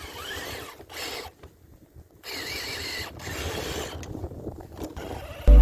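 RC crawler truck's electric motor and geared drivetrain whining in short bursts of throttle, stopping and starting twice. Music comes in near the end.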